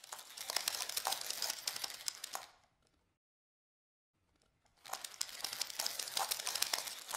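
Crinkling, rustling noise made of many fine crackles, in two bursts: the first lasts about two and a half seconds, and the second starts just before five seconds in.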